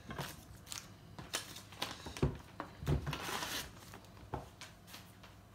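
Knife cutting a block of butter into cubes on a cutting board: irregular knocks and taps of the blade against the board, with a short rustle a little after three seconds in.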